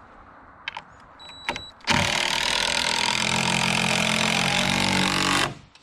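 DeWalt cordless driver running under load as it drives a long screw into a wooden beam. It starts about two seconds in, runs steadily for about three and a half seconds and stops suddenly. A few light clicks of handling come before it.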